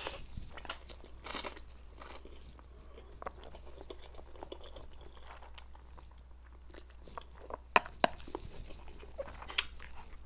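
Close-miked sounds of a person eating Korean stir-fried noodles with chopsticks: strands slurped in and chewed, with wet mouth clicks and smacks.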